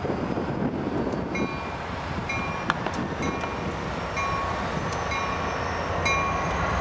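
Railroad grade-crossing bell dinging a little faster than once a second, starting about a second and a half in, as CSX diesel locomotives roll past with a low engine rumble underneath.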